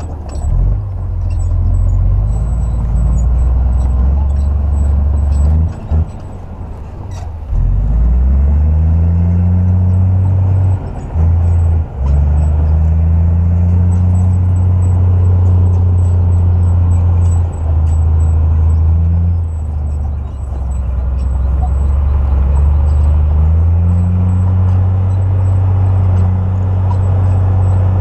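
Komatsu crawler bulldozer's diesel engine running as it pushes soil, its low drone rising in pitch several times as it revs up under load, with a few brief drops.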